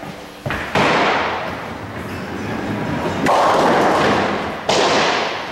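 Candlepin bowling balls thudding onto wooden lanes and rolling: three sudden loud thuds, about a second in, after about three seconds and near the end, each followed by a rolling rumble that fades.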